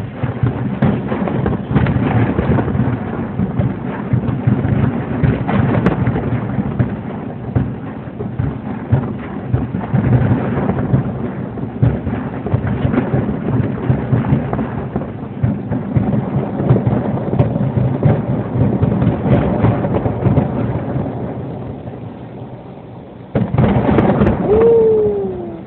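Fireworks display bursting in a dense, continuous barrage of booms and crackles. It eases off briefly, then a loud burst comes near the end, followed by a short falling whistle.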